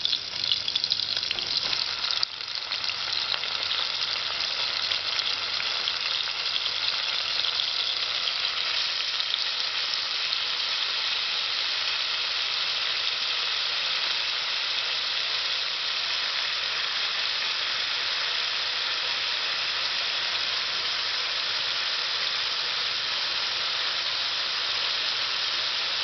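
Shallots, then pieces of goat head, frying in hot oil in an aluminium pot: a steady sizzle, a little louder and more uneven in the first two seconds.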